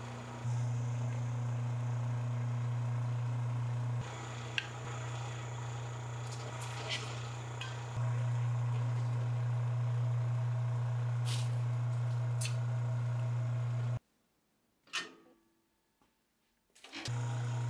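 Electric motor of a de-airing pug mill running with a steady low hum while it extrudes clay, with a few light clicks. The hum cuts out for about three seconds near the end, with one short knock in the gap, then resumes.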